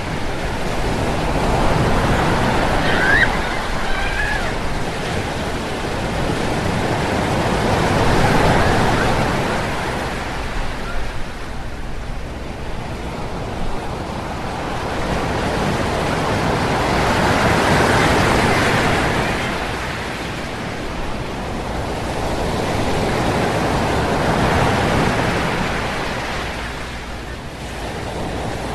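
Sea waves washing in: a steady rush of surf that swells and fades several times.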